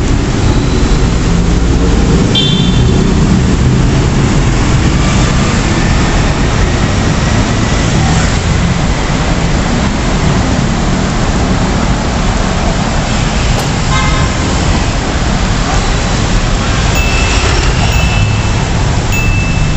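Steady road traffic beneath an elevated highway: cars and motorcycles passing on a wet road, with a few short horn toots, several of them near the end.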